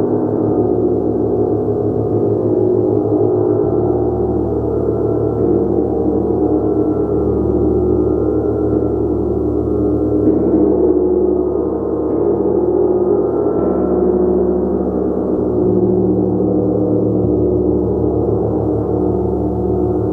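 A large gong played continuously in a sustained, swelling wash of overlapping tones, loudest in the low-mid range, with a slow beating pulse in its low hum and small swells as it is struck again.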